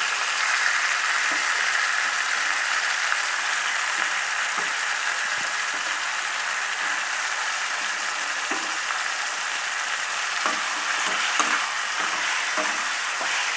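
Raw chicken pieces sizzling in hot oil in a kadai with onion and tomato, a steady hiss. A few light scrapes and knocks of a spatula stirring the pan come near the end.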